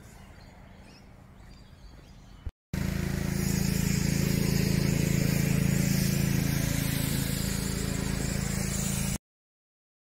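Faint background hiss, then after a brief gap a loud, steady motor hum with low droning tones that cuts off suddenly near the end.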